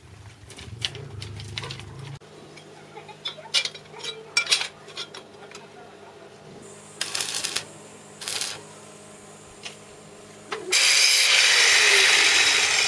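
Scattered clinks and knocks of steel tubing and parts being handled, with two short bursts of noise; then, about eleven seconds in, a handheld power tool starts and runs loudly and steadily.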